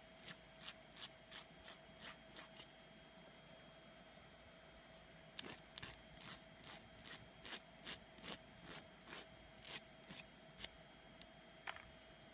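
Nail file filing the excess nail wrap off at the fingertip in short, quick strokes, about three a second. After a couple of seconds the strokes pause, then start again for a longer run.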